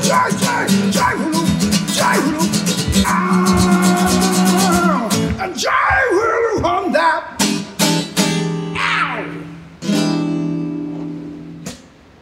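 Acoustic guitar strummed quickly while a man sings. The song closes with a few separate strummed chords, then a final chord left ringing and fading away.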